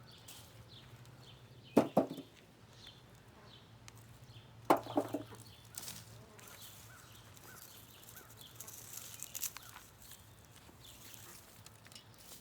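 Hand digging of potatoes in a pot of soil: soft rustling with two loud thumps about three seconds apart, each a quick double knock. Faint bird calls sound throughout.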